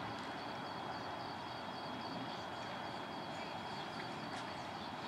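Steady outdoor background noise, an even hiss and rumble with no single clear source, with a faint steady high tone and a few faint short high ticks.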